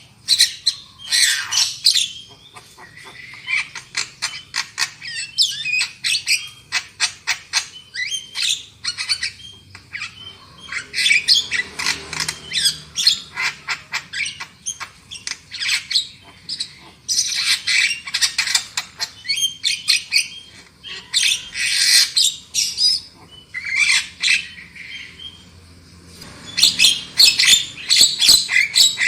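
Javan myna calling: harsh chattering and squawking in rapid runs of short notes, coming in bouts with brief lulls between them.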